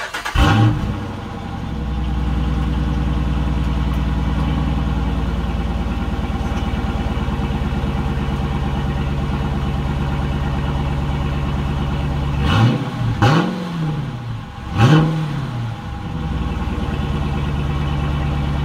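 A 2013 Jeep Grand Cherokee engine is heard through its exhaust, which has had the factory suitcase muffler removed and an X-pipe fitted. The engine catches with a brief flare and settles into a steady idle. About twelve and fifteen seconds in it is blipped twice, quick revs that rise and fall back to idle.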